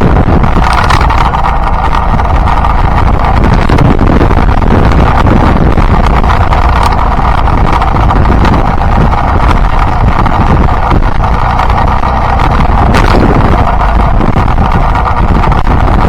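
Yamaha Byson motorcycle's single-cylinder engine running steadily while riding, with heavy wind noise on the microphone.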